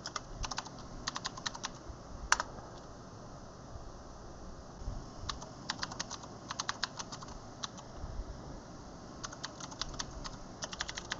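Typing on a computer keyboard: short runs of keystrokes with pauses between them, and one louder key click about two seconds in.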